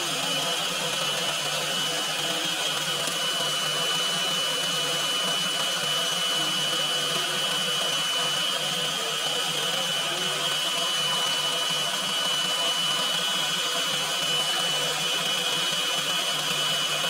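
Electric stand mixer running steadily at speed, its beater whipping batter in a stainless steel bowl, with a constant high motor whine.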